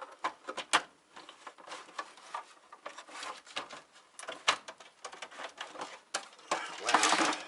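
Plastic housing of an APC Back-UPS RS 900 being handled and worked apart: scattered sharp clicks and knocks of hard plastic parts, with a rough scraping stretch near the end.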